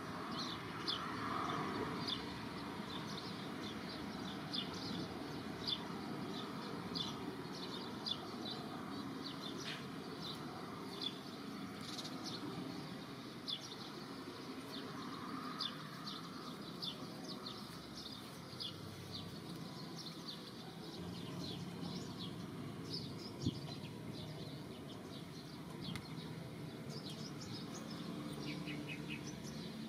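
Outdoor ambience of many short, high bird chirps scattered throughout, over a steady background hiss.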